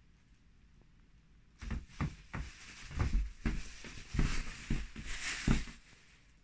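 Thin plastic shopping bag crinkling and rustling as a cat caught in it wriggles and rolls on her back, with soft thumps under several of the rustles. The rustling starts about one and a half seconds in and comes in a run of irregular bursts.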